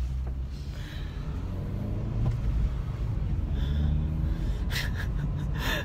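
Car engine and road rumble heard from inside the cabin while driving, the engine note climbing about a second and a half in.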